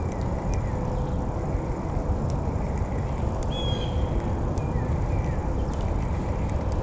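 Outdoor riverbank ambience: a steady low rumble of wind on the microphone, with a few short bird chirps, the clearest about halfway through, and faint scattered clicks.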